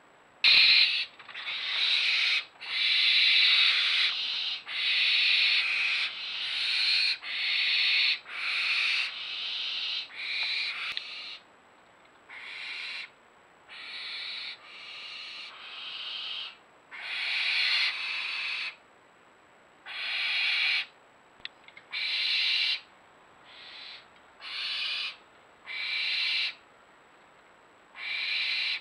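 Barn owls calling with a long series of harsh, hissing screeches, each about a second long. They come in quick succession at first and with longer pauses between them later on.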